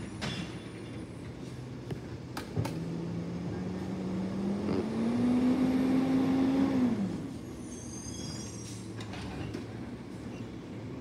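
Distant recycling truck's engine revving up, its pitch climbing for a few seconds and then dropping back, with a few sharp knocks early on and faint high squeaks near the end.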